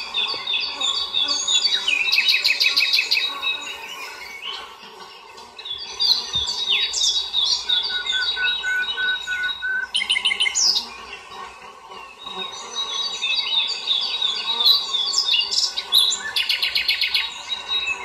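Songbirds singing: runs of quick high chirps, each ending in a fast trill, repeating about every six to seven seconds.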